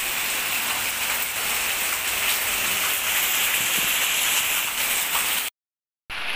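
Heavy rain pouring steadily onto a concrete courtyard and garden foliage, a loud, even hiss. It breaks off completely for about half a second near the end, then carries on.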